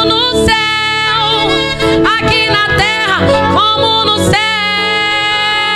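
A woman singing a gospel worship song into a microphone over instrumental accompaniment, her voice sliding up and down in pitch and then holding one long note from about four and a half seconds in.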